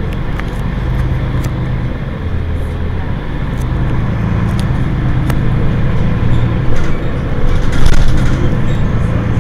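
Mercedes-Benz Citaro G C2 articulated bus engine idling steadily at a stop, a low, even hum, with a few light clicks over it.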